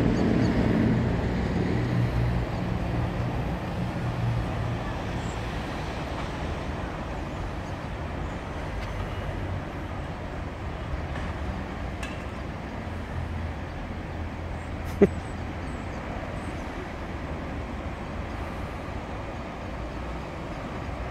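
Road traffic running steadily, with a vehicle's low engine hum loudest over the first few seconds and then fading into a steady rumble. A single sharp click comes about two-thirds of the way through.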